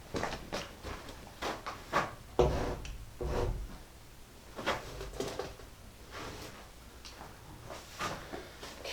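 Scattered knocks and scuffs of someone working and moving about, with two heavier thuds about two and a half and three seconds in.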